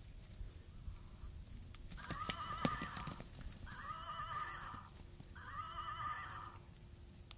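A toy horse's recorded whinny plays three times in a row, each call about a second long, quavering and almost identical to the others. A few sharp clicks come around the first call.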